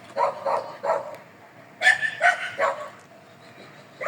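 A dog barking: a run of short, sharp barks in quick succession, stopping briefly near the end.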